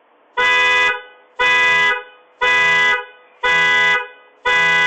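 Car horn sounding five times in a steady rhythm, about one short blast a second.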